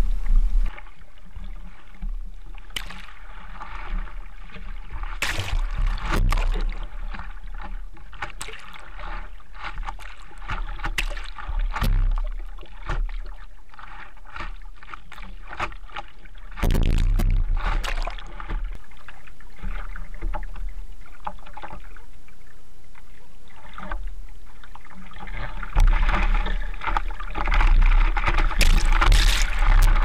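Seawater splashing and sloshing against a surfboard as a surfer paddles prone with both arms, heard close at the board's nose: irregular splashes from the hand strokes over a steady low rumble of water. The splashing grows louder about halfway through and again over the last few seconds.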